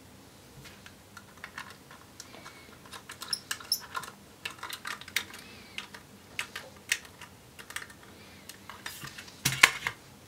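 Small clicks and metallic ticks of a Phillips screwdriver driving mounting screws into a metal 2.5-inch drive bracket around an SSD. Near the end comes a louder knock and clatter as the bracketed drive is set down in the laptop's drive bay.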